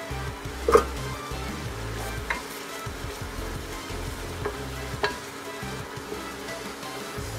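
Ground beef sizzling in a stainless steel pot while it is stirred with a wooden spoon, with a few knocks of the spoon against the pot; the sharpest comes about a second in.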